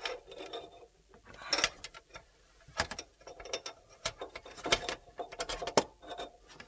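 Braided stainless-steel flexible tap hose and its metal end fitting being handled under a stainless-steel sink, tapping and rattling against the sink while it is fed up toward the mixer tap's inlet. About five sharp metallic clicks, spaced a second or so apart, with light rubbing and rattling between them.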